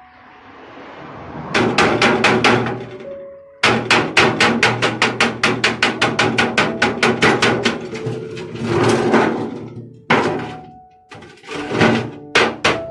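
A claw hammer beating the thin sheet steel of an oil tin: quick runs of metallic strikes, about five a second, with short breaks between the runs.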